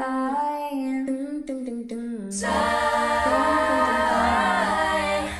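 A female voice sings and holds the last word of a line. About halfway through, layered wordless vocal harmonies come in over a low bass line.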